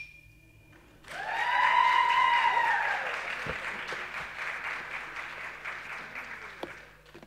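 Audience applauding and cheering: about a second in, clapping breaks out with loud held whoops lasting a couple of seconds, then the clapping gradually fades away.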